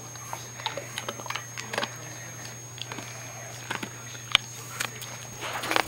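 German shepherd chewing a small hard dog treat: irregular crunchy clicks, the sharpest about four seconds in.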